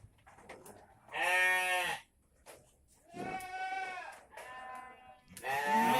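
Goats bleating: four calls of about a second each, the third fainter and the last starting near the end. The goats are noisy as usual while waiting for their evening feed.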